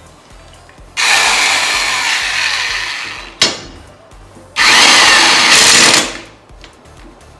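A 1/2-inch impact wrench hammering the lawnmower blade bolt tight, in two bursts of about two and one and a half seconds, with a sharp knock between them.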